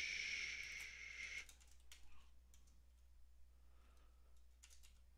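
Computer keyboard keys tapped a few times, faint, while code is edited. A soft hiss is heard for the first second and a half.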